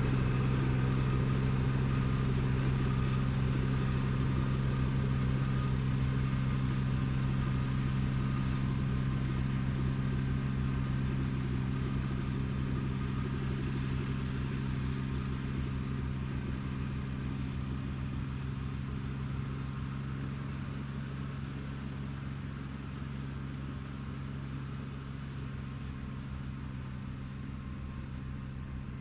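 Kubota BX2230D compact tractor's three-cylinder diesel engine running at a steady speed, slowly growing fainter.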